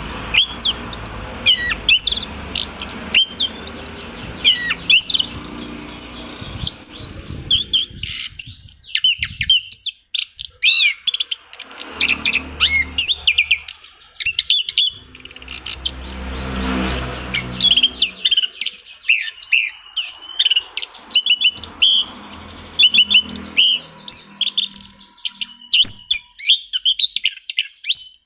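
Orange-headed thrush (anis kembang) singing a fast, dense run of varied whistles and chirps. This is a lure recording meant to prompt a caged thrush that is reluctant to sing. A low rumble runs beneath parts of it.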